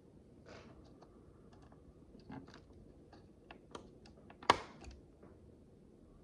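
Tiny plastic micro bricks clicking and tapping as they are handled and pressed together, with one much sharper click past the middle.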